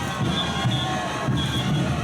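Traditional Bolivian parade music with a steady drum beat, with crowd voices underneath.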